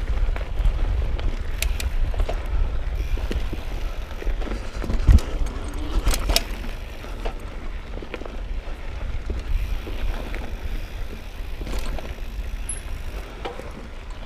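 Mountain bike being ridden over a rough trail: a steady low rumble with scattered sharp clicks and rattles from the bike, and one heavy thump about five seconds in.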